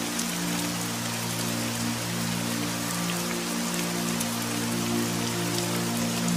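Steady rain pattering, an even hiss with fine drop ticks, over soft ambient music of slow, held low notes.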